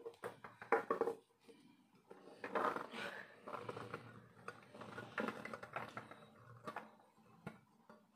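Diced potatoes and green peas pushed by hand off a steel plate into a pressure cooker, rattling and knocking as they drop, with the plate clinking against the cooker's rim. The knocks come unevenly, in small clusters.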